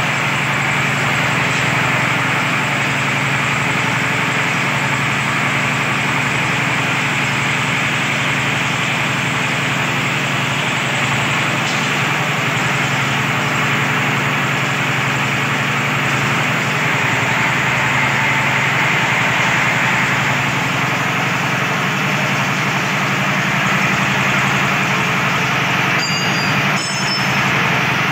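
Diesel engine running steadily, driving the gearbox and drill rod of an R75 well-drilling rig. A few brief clicks near the end.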